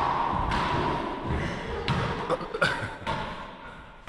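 Small rubber ball being struck with racquets and knocking off the walls and floor of an indoor court. There are several sharp hits a second or so apart, each echoing briefly.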